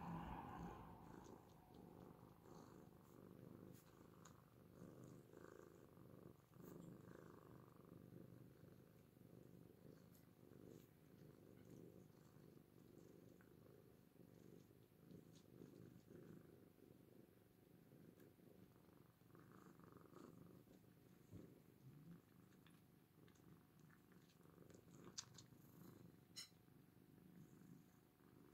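Oriental cats purring, a faint, steady, finely pulsing low rumble, with a couple of faint clicks near the end.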